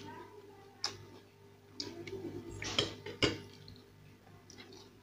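Spoon clinking against a ceramic bowl and plate while eating: a handful of short, sharp clicks, bunched around the middle, over a steady low hum.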